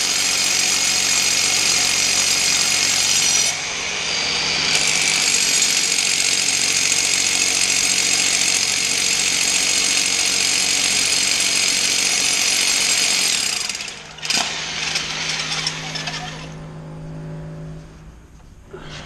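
A loud power tool running steadily, dipping briefly about three and a half seconds in. It stops abruptly about fourteen seconds in with a sharp click, leaving a quieter low hum.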